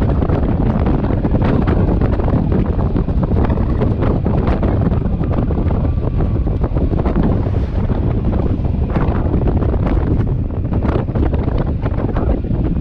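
Wind buffeting a camera microphone on a moving motorcycle: a loud, steady low rumble with crackles, drowning out the engine.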